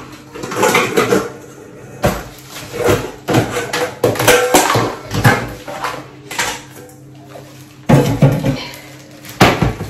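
Saltfish being rinsed in a kitchen sink: water splashing and dishes clattering in irregular bursts.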